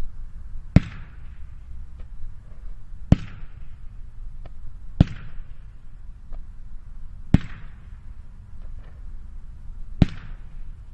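Weco Profi Line 8.15 20-shot fireworks battery firing one shot at a time, five sharp cracks about two seconds apart, each followed by a brief hiss, with fainter ticks between them. The Falling Leaves effect is a quiet one, without loud bangs.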